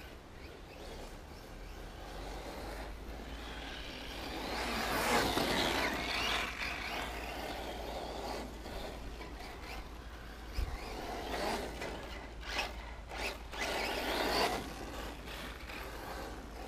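Radio-controlled off-road cars racing on a dirt track: motor whine and tyre noise rise and fall as they pass. They are loudest about five seconds in and again near fourteen seconds.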